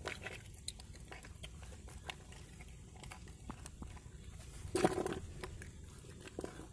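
Hands digging in wet mud, with soft squelching and small scattered clicks as freshwater snail shells are pulled out and handled. A louder wet squelch or splash comes about five seconds in.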